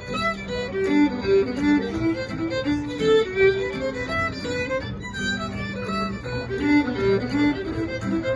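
Irish fiddle playing a lively hornpipe melody in quick running notes, with guitar accompaniment underneath.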